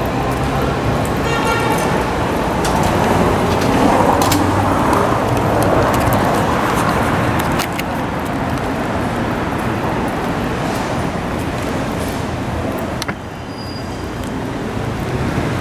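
Steady city street traffic noise from passing vehicles, with a brief high squeal about a second and a half in. The level drops suddenly near the end.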